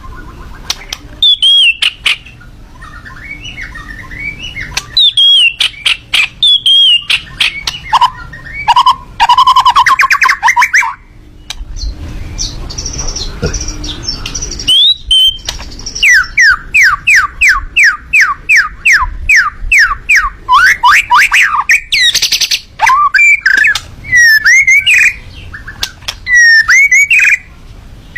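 A miwah songbird singing loud, varied phrases of whistles mixed with harsh, clicking notes. About halfway through it gives a fast run of short falling whistles, roughly four or five a second.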